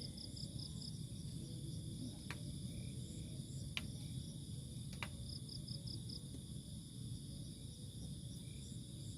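Crickets and other insects calling in a steady chorus of high, unbroken tones. A pulsed chirp of about five quick notes sounds near the start and again about five seconds in. Three faint ticks fall in between, over a low background rumble.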